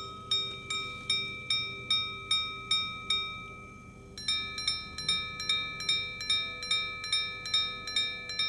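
Vintage Arnex 5-minute repeater pocket watch striking its gongs: the last of the twelve hour strikes ring evenly about two and a half per second. After a short pause about 4 s in, eleven strikes with a brighter two-tone ring count the 5-minute increments, the longest sequence the repeater plays, sounding correctly.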